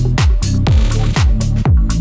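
Background electronic dance music with a steady kick drum about two beats a second and a short swelling noise sweep about a second in.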